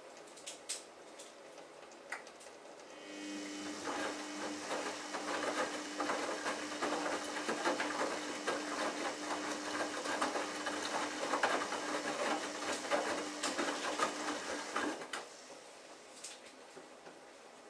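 Samsung Ecobubble front-loading washing machine's drum motor starting about three seconds in with a steady hum, tumbling the wet laundry with sloshing and small knocks for about twelve seconds, then stopping, as in the wash rhythm of its programme.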